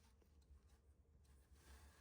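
Near silence: faint room tone with a low hum, and a faint scratchy rustle in the second half.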